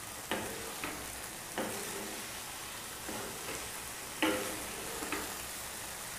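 Spatula stirring thick tomato masala gravy in a nonstick kadhai, knocking and scraping against the pan about seven times, each knock with a brief ring. Under it the gravy sizzles with a steady hiss.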